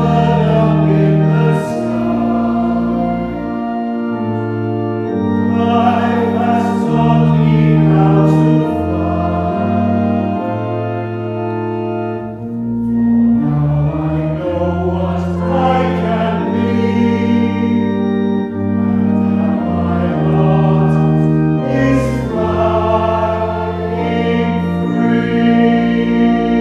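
A hymn sung by the minister and congregation to church organ accompaniment, in sustained chords; the sung lines include "For now I know what I can be" and "and now my heart is flying free."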